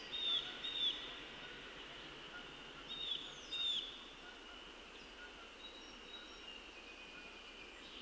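Songbird calls outdoors: two pairs of short, clear, down-slurred whistled notes in the first four seconds, then a few faint high notes, over a faint steady high-pitched chorus.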